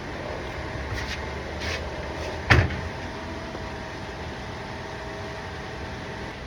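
A steady background hum with a few light knocks, the loudest a single sharp knock about two and a half seconds in.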